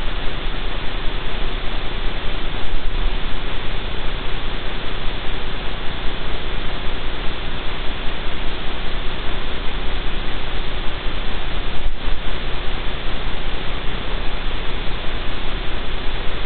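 Steady loud hiss of even noise with a faint steady hum running through it, and a faint click about three-quarters of the way through.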